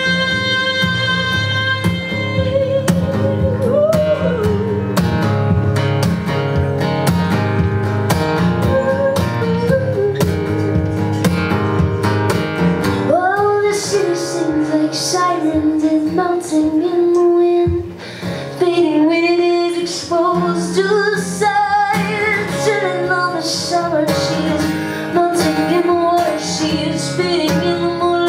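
A woman singing with her own acoustic guitar, live. She holds a long note for about two seconds, then sings wavering melodic lines with vibrato over the guitar chords.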